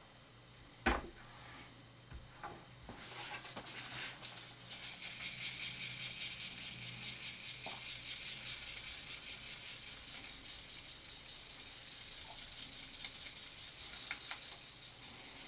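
A knife clamped in a vise being hand-sanded: a steady scratchy rasp that starts about five seconds in, after a single knock about a second in and some handling noise.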